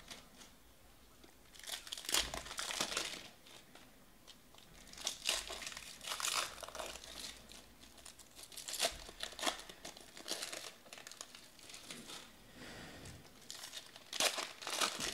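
Foil wrapper of a trading-card pack crinkling and tearing as it is ripped open by hand, in several short bursts with quiet gaps between.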